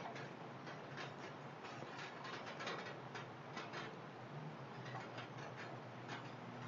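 Light rain: scattered drops ticking irregularly, several a second, on surfaces close by, over a faint steady hiss of rainfall.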